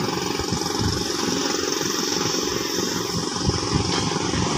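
Hydraulic excavator's diesel engine running steadily while it digs broken rock in a pit.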